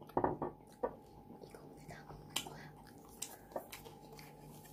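Mouth sounds of a person chewing toasted garlic bread with avocado spread: a few soft, scattered clicks and smacks over a faint steady hum.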